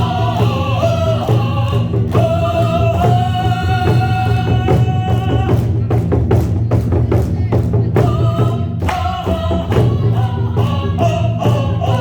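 A voice singing in Korean traditional sori style, holding long, bending notes over frequent strokes on a Korean buk drum.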